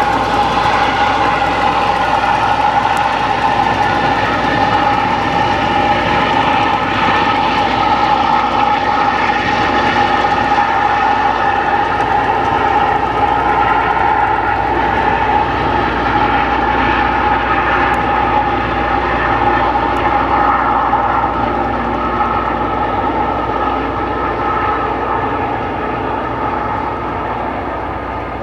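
Loram rail grinder train passing at work, its dozens of electrically driven grinding stones cutting the railheads: a loud, steady grinding noise with a high whine running through it, over the locomotives' rumble. It grows fainter over the last few seconds.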